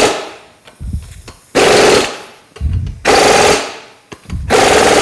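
Impact wrench with a torque stick hammering lug nuts to final torque, in four short bursts of about half a second to a second each, with low thuds between them. The torque stick keeps the lug nuts from being over-torqued.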